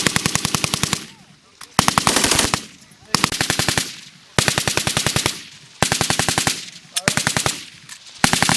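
M250 6.8 mm machine gun firing full-automatic in short bursts of under a second each, about one burst every second and a half, with rapid, evenly spaced shots.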